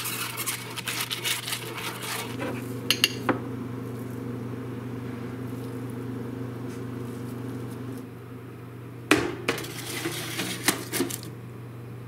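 A silicone basting brush rubs over a foil-lined baking pan, crinkling the foil, with a couple of sharp clicks about three seconds in. A few seconds later a spoon clinks several times against the pan and bowl as cookie dough is scooped onto the foil-lined tray. A steady low hum runs underneath.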